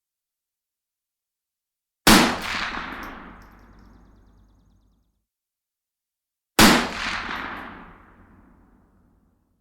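Two single rifle shots about four and a half seconds apart, each a sharp crack followed by a long echoing tail that fades over two to three seconds.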